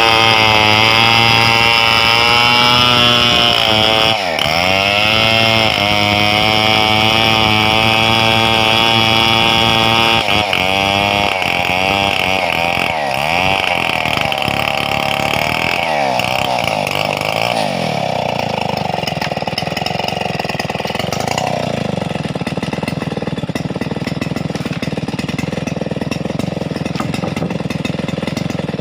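Stihl 070 two-stroke chainsaw running at high revs as it cuts through a wide gmelina board, its pitch dipping and recovering several times under load. From about twenty seconds in the engine drops to a lower, steady run.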